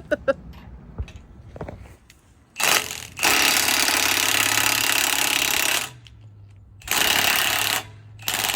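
Impact wrench hammering on a bushing puller's screw in four bursts, the longest about two and a half seconds, as it tries to draw a seized bushing out of an excavator. A steady low hum runs underneath from the first burst on.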